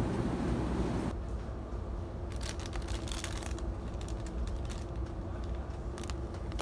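Shopping cart rolling over a store floor: a steady low rumble from its wheels, with scattered light clicks and rattles. The sound shifts abruptly about a second in.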